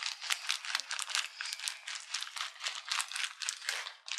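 Small craft beads rattling as they are shaken out to be added to slime: a dense run of quick clicks.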